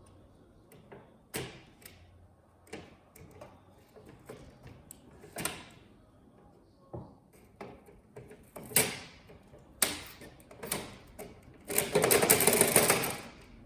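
Pliers and small parts clicking and knocking against a TV's internal metal chassis as small wired connectors are worked loose, irregular and sharp. Near the end comes a louder, noisy stretch of handling that lasts about a second and a half.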